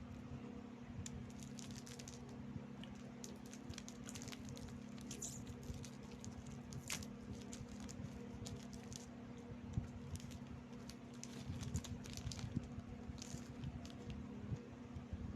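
Close-up chewing of crunchy Rebisco biscuits: faint, irregular crisp crunches and mouth clicks over a steady low hum.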